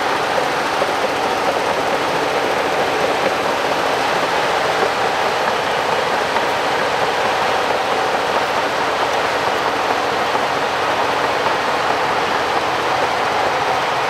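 Shantui DH17 B2 XL crawler bulldozer pushing rocky soil: its diesel engine running steadily under load, with the clatter of its steel tracks.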